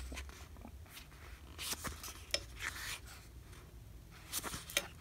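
Pages of a small paperback booklet being turned by hand: several short papery rustles and swishes, the loudest near the end.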